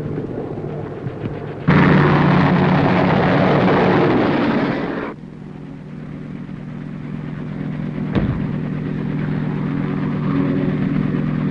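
Steady engine drone throughout. A loud rushing noise starts suddenly about two seconds in and cuts off about three seconds later, and a single sharp bang comes about eight seconds in.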